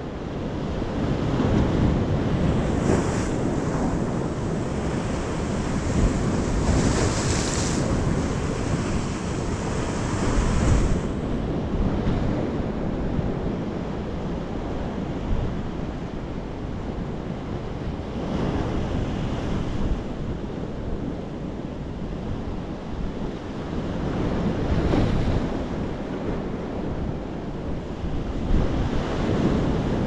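Sea waves breaking on rocks and washing up a sandy shore: a steady wash of surf that swells into a louder breaking wave every few seconds.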